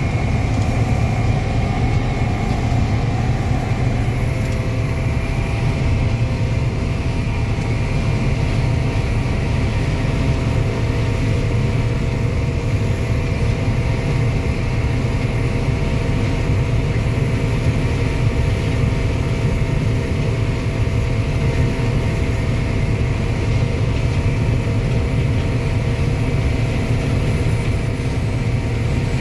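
Combine harvester running steadily while harvesting corn: a constant low drone with several steady whining tones from the machinery, one of them shifting slightly in pitch about four seconds in.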